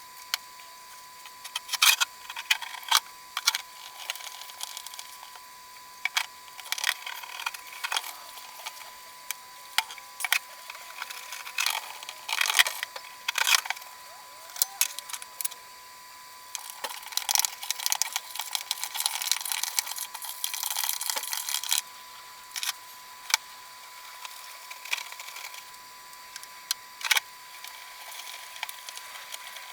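Hands working on a motorcycle part during cleaning: scattered clicks and knocks with several bursts of scrubbing or scraping, over a faint steady whine.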